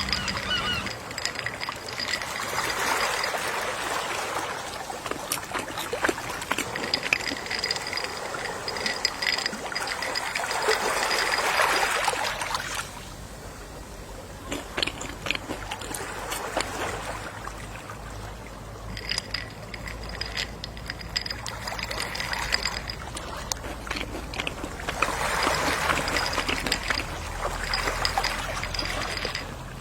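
Gentle sea waves washing onto a beach, swelling and fading in slow surges several seconds apart.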